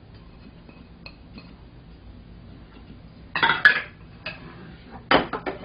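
Metal measuring cup and ceramic bowls clattering as they are stacked and set down on a counter: one clatter about three and a half seconds in, then a quick run of sharp clinks near the end.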